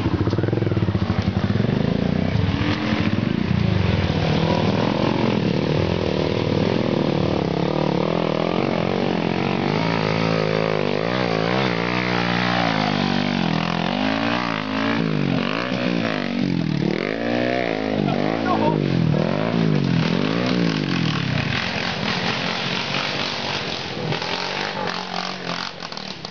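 Trail motorcycle engine running close by and revved up and down over and over, its pitch rising and falling about once a second through the middle of the stretch.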